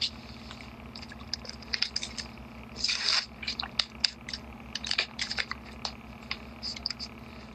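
Foil pouch crinkling and rustling as it is handled close to the microphone: a string of short crackles, with a longer rustle about three seconds in, over a steady low hum.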